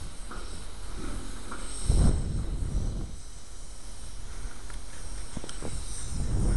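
Freight train of tank cars rolling past, a steady low rumble with scattered clicks from the wheels and couplers and a heavier thud about two seconds in.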